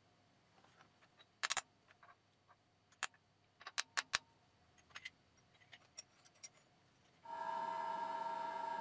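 Scattered light metallic clicks and clinks of metal parts or tools being handled, then about seven seconds in a workshop machine switches on and runs with a steady whine.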